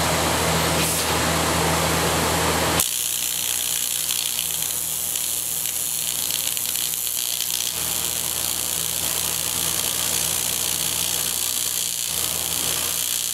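TIG welding torch arc on aluminium, a steady hum. It drops suddenly in level about three seconds in and then carries on more quietly.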